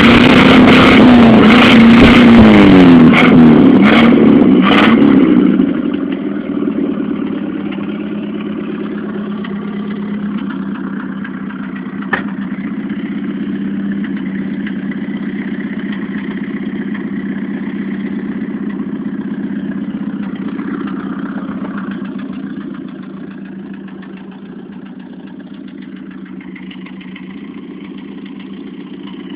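Chevrolet Opala engine revved loudly in several quick blips, its pitch rising and falling, then settling about six seconds in to a steady, rumbling idle. A single sharp click sounds about twelve seconds in.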